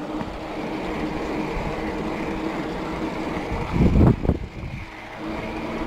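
Bicycle rolling along asphalt: steady tyre and wind noise on the handlebar camera's microphone with a faint steady hum, and two short louder bumps about four seconds in.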